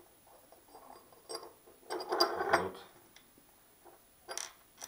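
Small metallic clicks and scraping of a gasket and a small fitting being handled and pressed into a brass espresso-machine pipe fitting by hand, with a louder spell of handling noise about two seconds in and a sharp click near the end.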